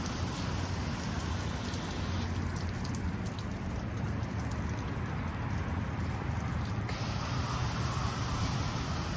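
Gas-powered pump engine running steadily under a hiss of spraying water. The high part of the hiss thins out about two seconds in and comes back suddenly about seven seconds in.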